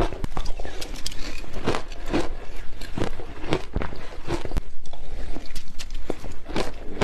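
Shaved ice being bitten and chewed close to the microphone: a quick, irregular string of crisp crunches.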